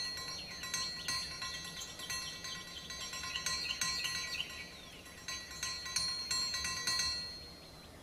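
Chimes ringing, struck again and again so that their tones overlap, fading away near the end.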